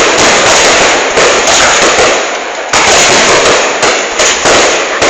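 Fireworks display: a dense, continuous barrage of bursts and crackle, very loud, easing briefly about two and a half and four seconds in.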